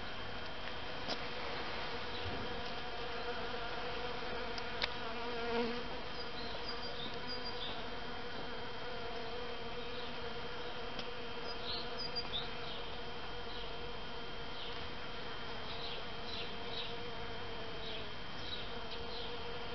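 A steady buzzing hum, with a few faint high chirps and a couple of light clicks.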